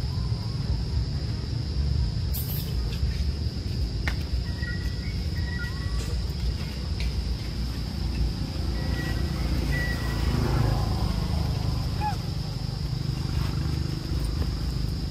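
Outdoor forest ambience: a steady high-pitched insect drone over a low rumble, with a few short chirps and light clicks.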